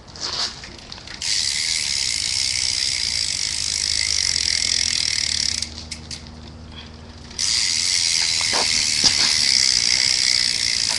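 Stock rear hub of a Verde Eon BMX bike freewheeling as the rear wheel spins, its pawls ticking so fast they run together into a loud, steady buzz. It comes in two spells, the first starting about a second in and stopping around six seconds, the second starting about seven seconds in.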